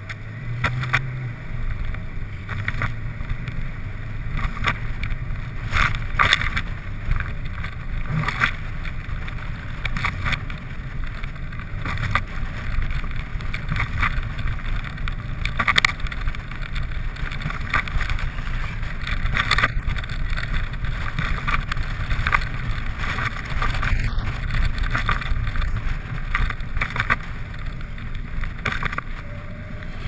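A car driving, heard through a microphone on its hood: a steady low road-and-wind rumble with frequent irregular knocks and crackles.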